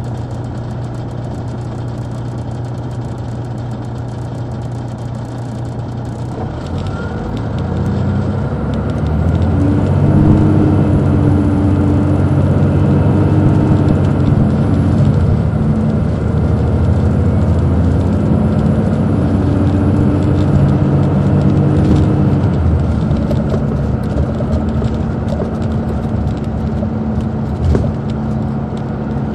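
Detroit Diesel Series 60 engine of an MCI D4500 coach, with an Allison automatic transmission, running steadily for about six seconds, then growing louder under load as the bus pulls away. The note changes in steps around the middle, with a faint high whine over it, before it settles to a steady cruise. There is a single thump near the end.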